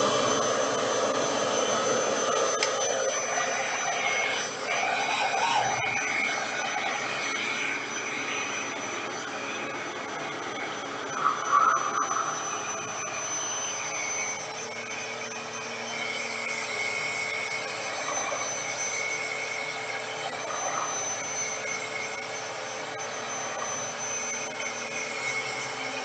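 RevAir reverse-air hair dryer running on its low setting, its motor drawing air through the hose and wand as damp hair is pulled into the tube: a steady whirring rush with a high whistle. It is somewhat louder for the first few seconds and gives one brief louder rush about eleven seconds in.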